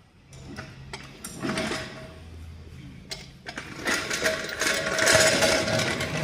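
A vehicle wheel turning with a mechanical rattling, grinding noise: a low hum at first, growing louder from about four seconds in. This is the unwanted noise coming from the wheel.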